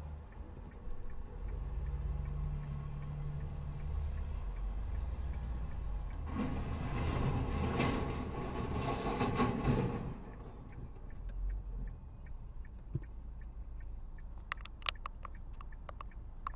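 Low rumble of a heavy multi-axle military truck's engine, then about four seconds of loud rushing, crashing noise as the truck goes off the road and throws up a cloud of dust. A few sharp clicks come near the end.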